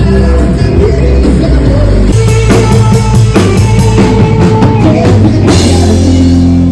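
Live rock band playing: a drum kit keeping a steady beat over bass and electric guitar.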